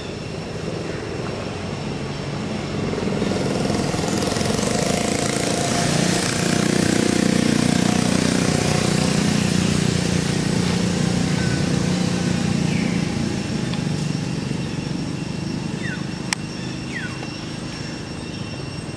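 A motor vehicle passing, its engine noise swelling over several seconds and then fading away, with a few short high chirps near the end.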